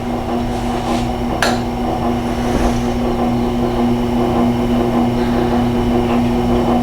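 Tormek T-8 sharpener running with a steady motor hum as its leather honing wheel turns; a sharp click about a second and a half in.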